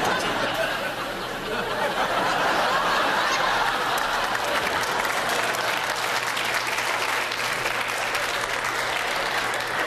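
Studio audience applauding, with laughter mixed into the clapping.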